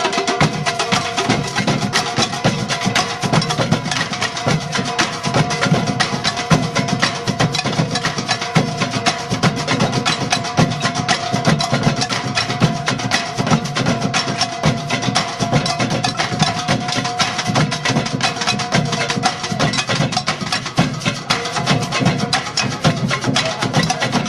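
Percussion music: a fast, dense run of knocking, wood-block-like strikes over a few steady held tones, going on without a break.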